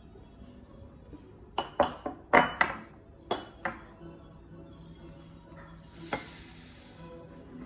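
Kitchen utensils knocking and clinking against a mixing bowl, about eight quick strikes, then a brief high rustling hiss a few seconds later, as with dry ingredients being stirred in the bowl.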